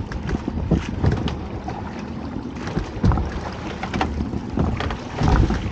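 Wind buffeting the microphone over water sloshing against a small boat's hull, with splashes and knocks as a dripping crab pot is hauled up out of the sea and over the gunwale. Two heavier thumps stand out, about three seconds in and near the end.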